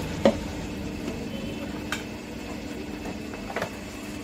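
A few light knocks and clicks as a whisky bottle's gift tube is handled and set down on a glass-topped counter, the first knock the loudest, over a steady low hum.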